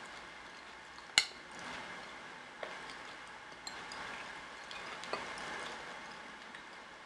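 Metal fork stirring cooked fava beans in a bowl: a soft, wet mixing noise, with one sharp clink of the fork against the bowl about a second in and a few lighter taps after.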